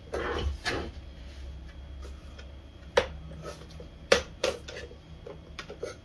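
Hard plastic clicks and knocks as the grey filter frame is worked out of its slot in a Bosch GL-30 vacuum cleaner's bag compartment, with two sharper snaps about three and four seconds in.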